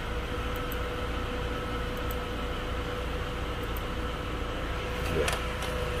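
Steady mechanical hum with a constant faint tone, and a single click about five seconds in.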